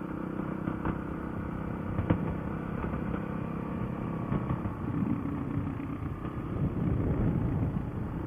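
Motorcycle engine running while riding, steady at first, with its note shifting from about halfway through. There is a short knock about two seconds in.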